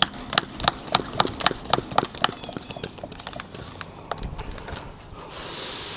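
Quick footsteps, about four sharp steps a second, growing irregular and fainter after a couple of seconds. A steady hiss starts near the end.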